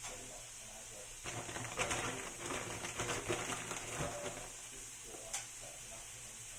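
Food sizzling in a frying pan, with a spatula scraping and clinking against the pan through a busier few seconds in the middle.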